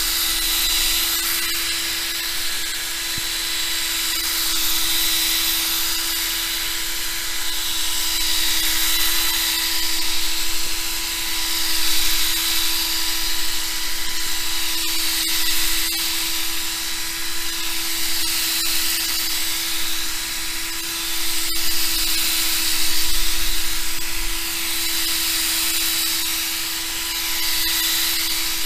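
Power drill running steadily, spinning a 3M restoration kit pad against a plastic motorcycle windscreen: an even motor whine under a high hiss of the pad on the plastic, swelling and easing a little as the pressure changes.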